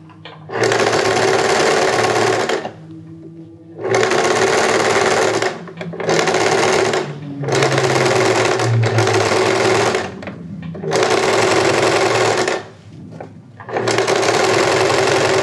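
Domestic electric sewing machine stitching piping onto fabric with a piping foot. It runs in about six stop-start runs of one to two seconds, with short pauses as the fabric is eased around a rounded edge.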